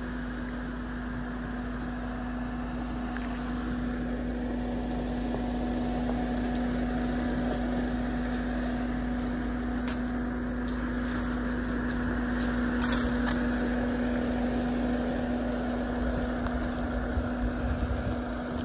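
Mahindra Scorpio N's 2.2-litre diesel engine running at low, steady revs as the SUV crawls along a dirt track, growing gradually louder as it approaches. Near the end, wind starts buffeting the microphone.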